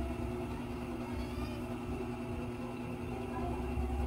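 A steady low mechanical hum over a low rumble, holding an even pitch throughout.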